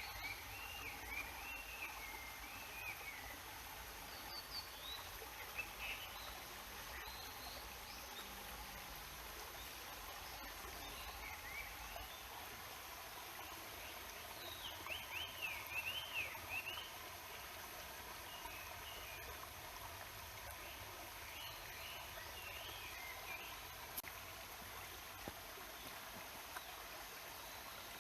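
Steady murmur of a mountain stream, with songbirds singing now and then over it: warbling phrases at the start, a few short calls, and the loudest run of song around the middle.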